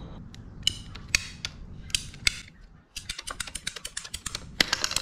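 Scattered clicks and taps. About three seconds in, a ratcheting PVC pipe cutter starts a fast run of sharp clicks as it is squeezed through white PVC pipe, with a few louder clicks near the end.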